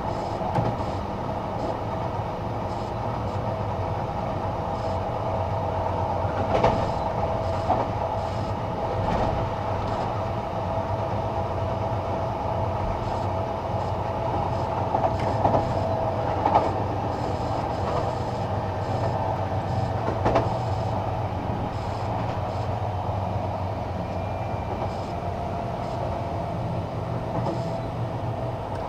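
Sotetsu Series 20000 electric train running at steady speed, heard from inside the passenger car: a steady rumble of wheels on rail with a steady hum, and a few sharp knocks from the running gear.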